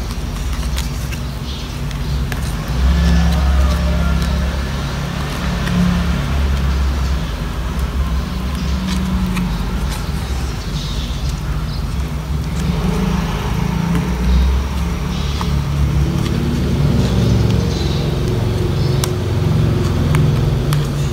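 Steady low rumble of road traffic with engine tones that swell and fade as vehicles pass, over faint crackles and ticks of clear plastic photocard sleeves being handled.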